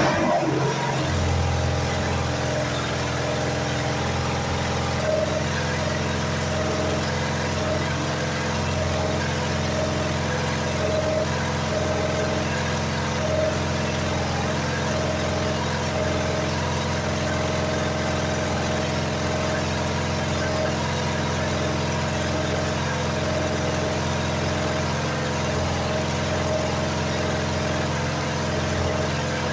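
Engine of a Lincoln engine-driven welder running at a steady speed.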